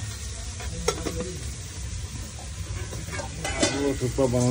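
Chowmein noodles boiling in a steel pot, with a steady low hum and a few light clinks and scrapes of stirring. Near the end a pitched, voice-like sound rises and falls.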